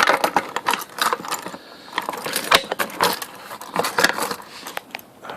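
Irregular metallic jangling, clicks and knocks, like keys and hard plastic being handled.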